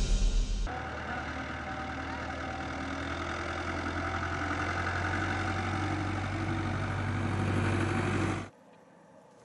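A steady, low engine-like drone, with the last moment of a logo jingle at the start; the drone cuts off suddenly near the end, leaving only faint background.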